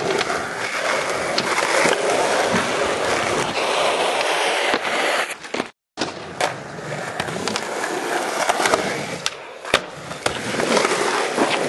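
Skateboard wheels rolling on skatepark concrete, a steady gritty rumble, with sharp clacks of the board striking the ground now and then. The sound cuts out for an instant about halfway through.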